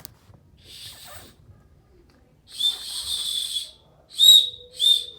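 Small emergency whistle on a Leatherman multi-tool being blown: a faint puff, then one long shrill blast, then two short, louder blasts.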